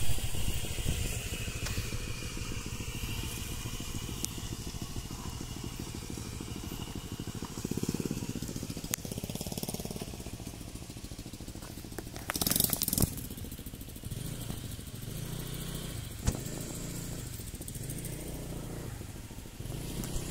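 A small motorcycle engine idling steadily. About twelve seconds in there is a short burst of hiss, and a single click a few seconds later.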